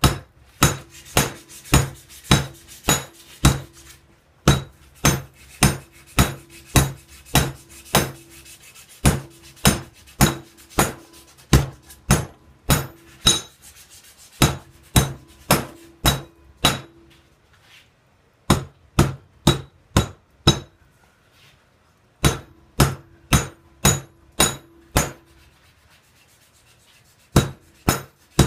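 Hand hammer forging a hot railroad spike into a knife blade, metal striking metal at about two blows a second. The blows come in runs with short pauses between, and a steady ring sounds through each run.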